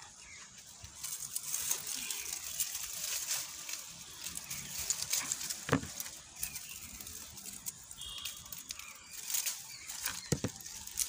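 Leaves and vine stems of a bitter gourd plant rustling and crackling as they are pushed aside by hand, with a couple of sharp clicks.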